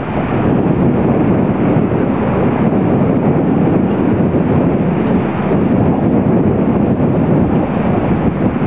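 Loud, steady low rumble of vehicle traffic and engines, with no distinct events.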